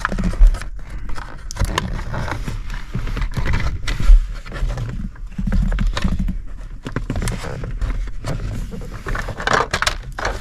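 Hands fitting a 3D-printed plastic wiring-harness pass-through around the harness: irregular scraping, rustling and clicking, with two sharper knocks, one about half a second in and one about four seconds in.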